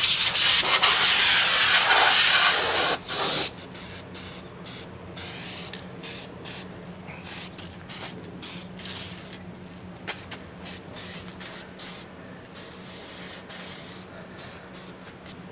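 Compressed-air blow gun hissing loudly for about three and a half seconds as it blows off the panel, then a run of short, quieter hisses from an aerosol spray-paint can.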